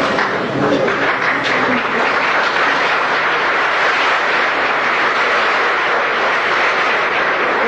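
Audience applauding and cheering, a steady dense roar of noise.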